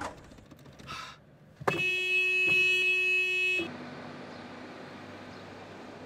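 A car horn blares steadily for about two seconds, with a brief dip partway through, then cuts off. Quieter steady street background follows.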